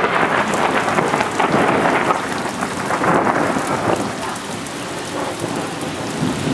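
Thunder rumbling and crackling over steady heavy rain, loudest in the first few seconds, then easing off.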